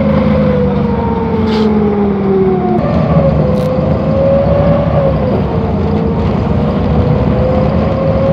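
Inside a moving city bus: steady engine and road rumble, with a whine that slides down in pitch over the first three seconds, jumps back up and then holds roughly level.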